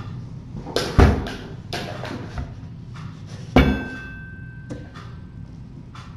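Thumps and knocks from kittens playing and running around a room. The hardest hits come about a second in and about three and a half seconds in; the second strikes something metal that rings briefly.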